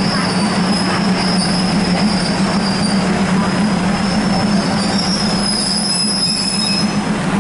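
Hitachi diesel multiple unit rolling slowly into a terminus platform: the steady low drone of diesel engines and the rumble of the running gear, with a high squeal from the wheels and brakes that wavers and fades out near the end as the train slows to a stop.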